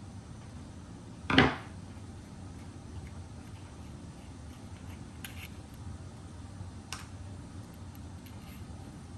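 A 2024 Zippo lighter being handled: one loud short metal clunk about a second and a half in, then two light clicks a couple of seconds apart later on.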